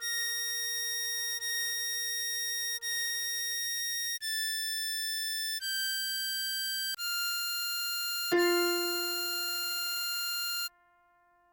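A diatonic harmonica melody played slowly, one steady note at a time, changing about every second and a half. About seven notes are heard before it cuts off abruptly near the end.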